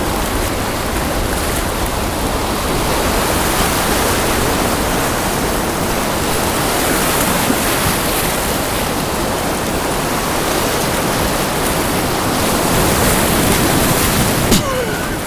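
Whitewater rushing steadily over a river block ramp, a loud, even wash of water noise. A single short knock sounds near the end.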